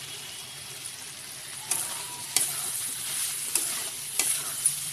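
Masala sizzling in a metal kadai while a spatula stirs boiled potato cubes through it. From about a second and a half in, the spatula scrapes and knocks against the pan several times.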